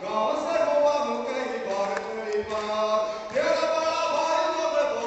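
A man reciting a Hindi poem in a sung, chanted melody into a microphone, holding long notes.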